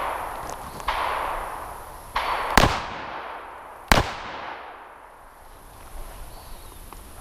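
Two sharp, close shots from a .357 Magnum revolver, about a second and a half apart, each with a ringing tail. Fainter, duller reports of other gunfire on the range come before them.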